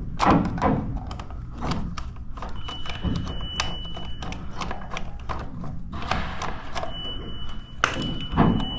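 Irregular clicks, taps and knocks of hands and tools working at a safe's electronic keypad lock, over a steady low hum. A faint, thin, steady high tone comes in twice, the second time from about seven seconds in.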